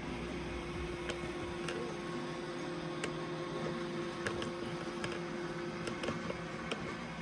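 iRobot Roomba i7+ robot vacuum running as it cleans, a steady motor hum with a held tone and a few sharp ticks scattered throughout.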